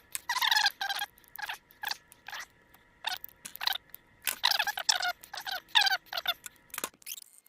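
Short squeaky scrubbing strokes, about a dozen, as a brush works over a 1948 Chevrolet truck's carburetor parts to clean them, stopping about seven seconds in. A faint steady high hum runs underneath.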